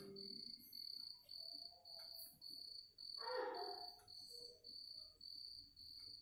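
A faint, high-pitched chirping that repeats evenly about twice a second, like an insect. A brief rustle comes about three seconds in.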